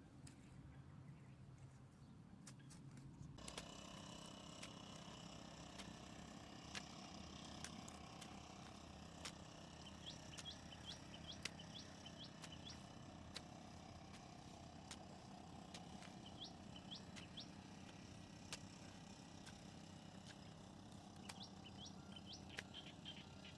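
Faint outdoor ambience: a low steady hum, a fuller background noise that comes in about three seconds in, scattered light clicks, and several runs of short, high, rising chirps.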